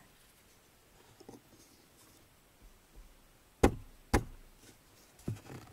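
Two sharp knocks about half a second apart, a little over halfway through, with a few faint clicks before them.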